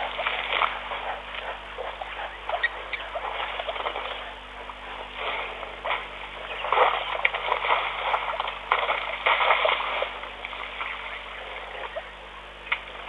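Elephants moving in wet mud at a waterhole: irregular splashes and crackles of mud and water, louder about seven and nine seconds in, over a faint steady electrical hum.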